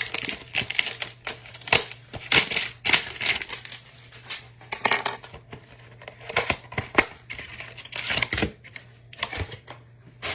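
Trading-card packaging and cards being handled: irregular clicks, snaps and crinkling rustles of cardboard hanger boxes, plastic wrap and card stacks, over a faint steady low hum.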